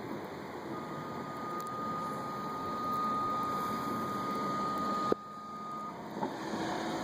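Kubota compact track loader running under load, with a steady high-pitched alarm tone held for about five seconds. A sharp knock comes about five seconds in.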